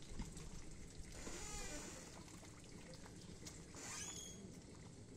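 Faint trickling and dripping of water as a large twine lift net on a bamboo frame is raised out of the pond, with a brief high squeak about four seconds in.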